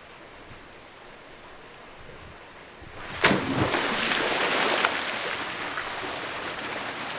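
A person jumping into a swimming pool: quiet running water, then a loud splash about three seconds in, followed by spray falling back onto the water and slowly fading. The steady trickle is a small rock waterfall spilling into the pool.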